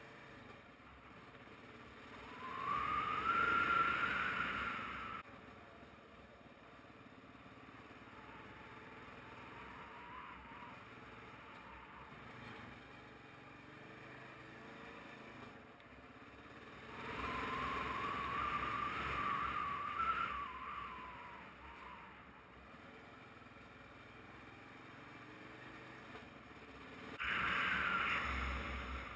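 Motorcycle engine on a dirt road, running quietly at low throttle and rising in pitch as it accelerates in three louder stretches: about two seconds in, around seventeen seconds, and near the end.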